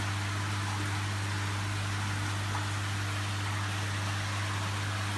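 A steady low electric hum under an even hiss, holding level without change.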